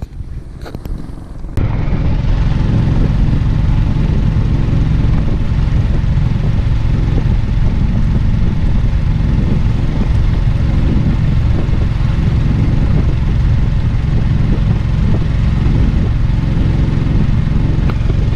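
Boat engine running steadily under way, with water rushing along the hull of the wooden boat. It comes in suddenly about a second and a half in, after a few faint knocks.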